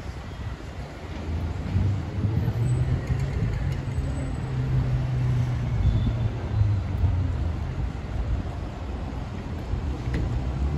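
City street traffic, with a motor vehicle's engine running close by as a low steady hum that is strongest in the middle of the stretch.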